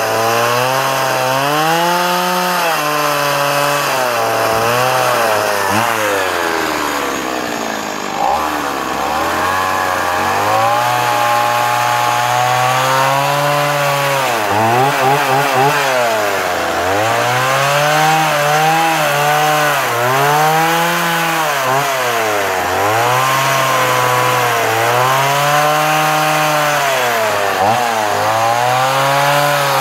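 Stihl MS 170 two-stroke chainsaw carving into a wooden post, its engine pitch rising and falling every second or two as the throttle is worked. It drops low briefly about eight seconds in, then picks up again.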